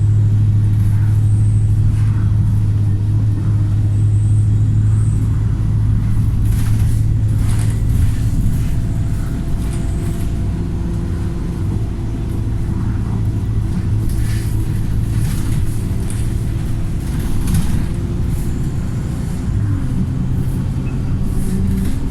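Remapped diesel engine of a Wright StreetLite single-deck bus running, a loud steady low drone that eases off about a third of the way through. Brief bursts of noise over it.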